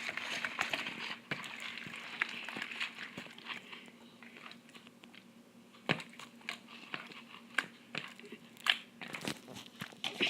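Homemade glue-and-liquid-starch slime being mixed, a run of sticky crackling and clicking with a few sharper snaps around six and nine seconds in. A faint steady hum runs underneath.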